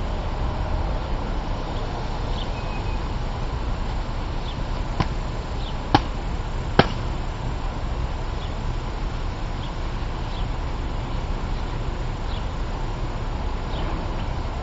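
Three sharp chops of a Montero bushcraft knife's blade striking a wooden pole, close together about a third of the way in, the last two loudest.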